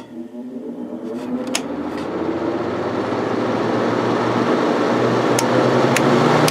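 Window air conditioner's Universal Electric fan motor starting up: a whine rising in pitch as the motor spins up over the first few seconds, with a growing rush of air from the fan and a steady electrical hum. It then runs steadily, with a few sharp clicks.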